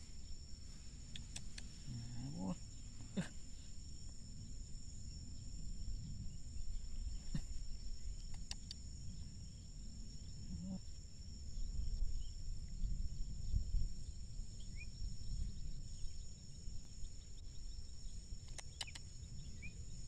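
Steady high-pitched insect drone, two even tones held throughout, over a low rumble, with a few faint clicks as the snare's string and sticks are handled.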